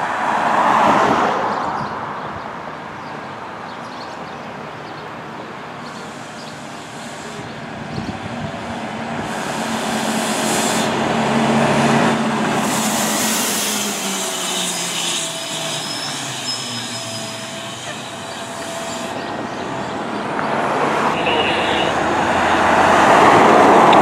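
Road vehicles passing by, with two louder pass-bys about a second in and near the end, and a low engine tone that falls in pitch midway as a vehicle goes past.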